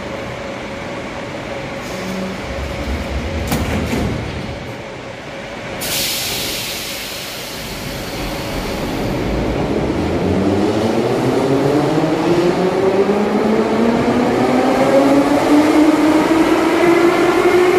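Vintage Soviet-era Moscow metro train pulling out of the station. A sudden hiss about six seconds in, then its traction motors whining in several tones that climb steadily in pitch and grow louder as it accelerates away.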